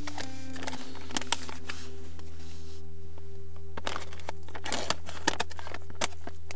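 Crinkling and rustling of a freeze-dried meal pouch as it is pulled open and handled, in short bursts with a busier stretch a little past the middle. A soft music bed with a low steady drone runs underneath.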